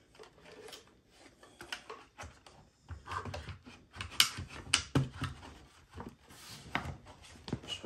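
Wires being fed by hand back through a plastic Bluetooth speaker enclosure: irregular rustling, scraping and light clicks of cable and plastic, with a few sharper clicks about halfway through.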